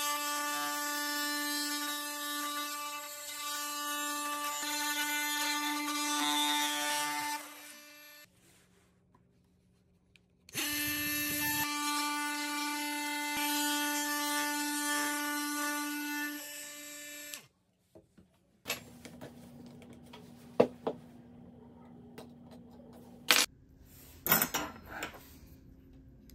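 Cordless Milwaukee Fuel oscillating multi-tool with a flat blade plunge-cutting into a softwood block: a steady high buzz with a strong hum, stopping after about seven seconds. After a pause of a couple of seconds it runs again for about seven seconds, cutting into a hardwood block. A few sharp clicks and clinks follow near the end.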